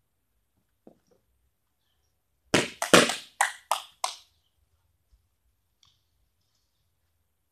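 A quick run of about six sharp, loud knocks, all within under two seconds.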